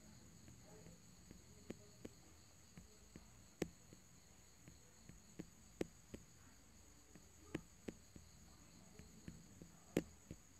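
Near silence: faint room tone with a steady high-pitched hiss and scattered small clicks, the loudest about 3.5, 6 and 10 seconds in.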